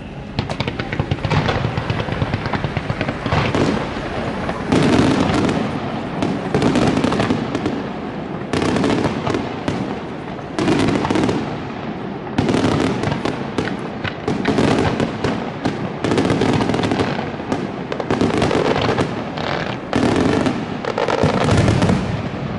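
Aerial fireworks display going off in rapid succession: dense crackling and bangs, swelling into a fresh volley every second or two.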